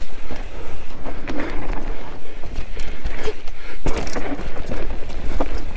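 Mountain bike descending a rough trail: a steady low rumble with repeated sharp knocks and rattles as the bike goes over rocks and roots.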